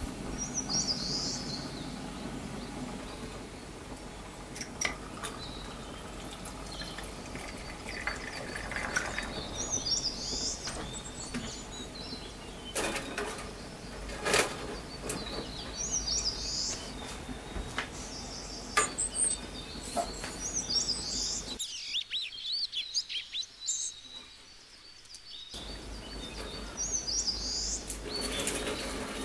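Clicks and light clatter of a stainless steel mesh grill rack being set on a gas camping stove, over a steady background hum. A short high chirp comes back every five or six seconds.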